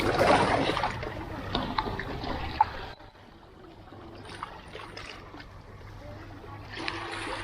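Water splashing and trickling, louder for the first three seconds with a sharp click, then dropping off abruptly to a quieter wash.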